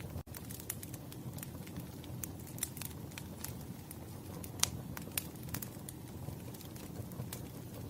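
Wood fire crackling: irregular sharp pops and snaps over a low steady rumble of burning logs, with a momentary dropout just after the start.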